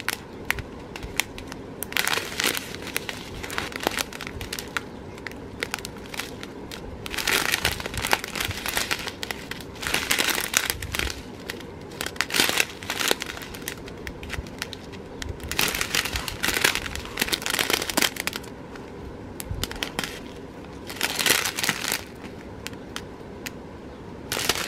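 Clear plastic bags of round diamond-painting drills crinkling as they are handled, in irregular bouts a second or two long, several times over.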